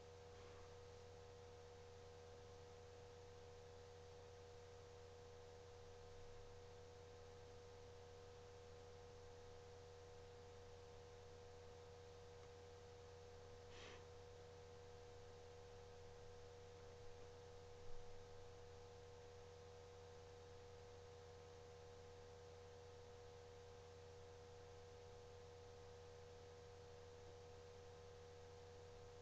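Near silence: a steady electrical hum with a few faint fixed tones. There is one faint tick about halfway through and a few soft knocks shortly after.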